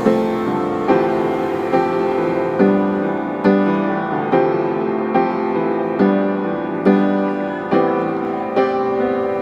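Background music: slow, gentle piano-led chords, a new chord struck about once a second and fading before the next.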